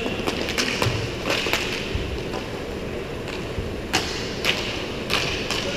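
Roller hockey play on a plastic sport-court floor: a steady hiss of inline skate wheels and rink noise, broken by several sharp clacks of sticks and puck.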